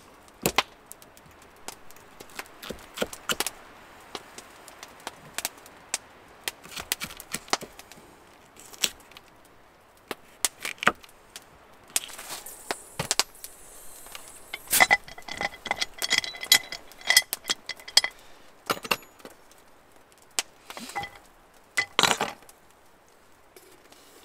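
A knife tapping and chopping against a wooden cutting board in irregular strikes as garlic cloves are sliced. About two thirds of the way in comes a run of ringing metallic clinks.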